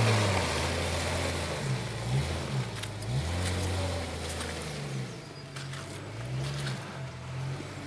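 Jeep Cherokee XJ engine revving up and down under throttle, its pitch rising and falling several times, fading as the Jeep pulls away across muddy ground.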